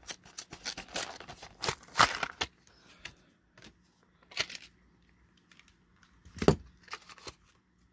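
Clear plastic blister packaging of a diecast toy car crackling and clicking as it is pried open by hand, busiest in the first couple of seconds and then scattered. A single dull knock near the end.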